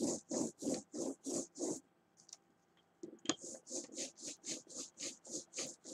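Rhythmic back-and-forth rubbing strokes on a surface, about three to four a second, stopping about two seconds in and starting again a second later with a sharp click.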